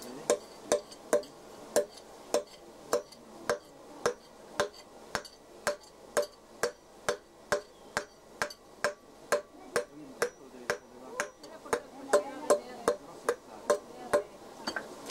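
Hand hammer striking the end of a red-hot iron rod held in a nail header on the anvil, upsetting the head of a hand-forged nail. Steady, sharp metallic blows, about two a second.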